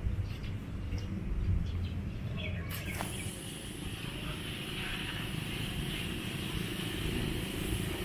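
Outdoor ambience: a low rumble with a few faint bird chirps, then about three seconds in it changes to a steady high hiss.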